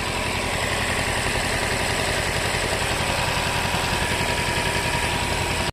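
Toyota Camry engine idling steadily with an even beat, its new ignition coils fitted; the mechanic judges it free of the misfire it had before.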